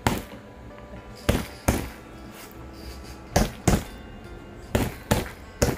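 A baby slapping with her hands: sharp smacks in quick pairs, repeated about every second and a half, over soft background music.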